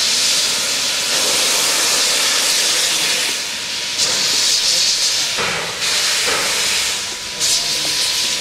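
W class steam locomotive W934 moving slowly with steam blowing from its open cylinder drain cocks: a loud, continuous hiss that dips and surges again several times.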